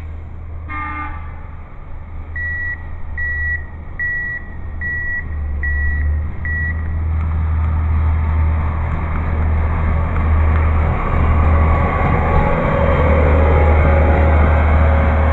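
Self-propelled railway track maintenance machine approaching on the rails: a short horn toot about a second in, then six evenly spaced warning beeps, about one every 0.8 s. After that its engine grows steadily louder as it draws close.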